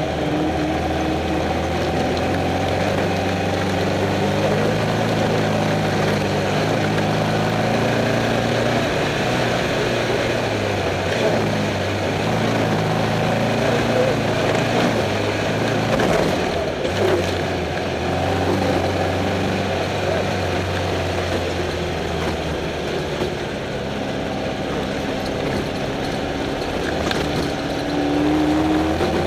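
Off-road race car's engine running under way, heard from inside the cockpit, its pitch stepping up and down as the revs change, over steady rattle and road noise.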